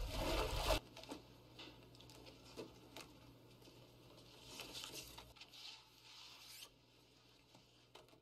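Paper record sleeves rustling and scraping as LPs in a wooden crate are flipped through by hand, with small clicks and soft swishes. At the start there is a loud rush of noise with a deep rumble that cuts off under a second in.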